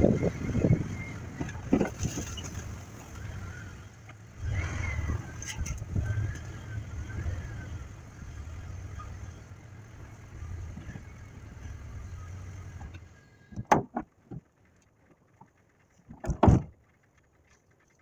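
Truck driving slowly with a steady low engine rumble and some faint squeals. About 13 seconds in the engine shuts off, followed by a few sharp knocks.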